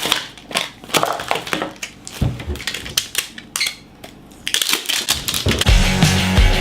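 A run of irregular sharp crunching and crackling sounds, like something being crushed. Rock music starts about five and a half seconds in.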